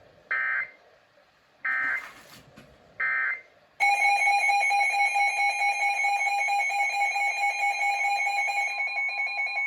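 Emergency Alert System tones: three short bursts of SAME digital data tones, then the loud, steady EAS attention signal sounding continuously from about four seconds in.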